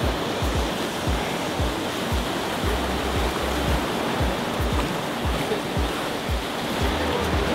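Ocean surf washing steadily against a rocky shoreline, with wind buffeting the microphone in irregular low rumbles.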